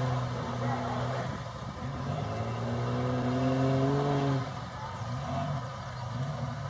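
Truck engine revving under load, its note climbing slowly for a couple of seconds and then falling away about two-thirds of the way through.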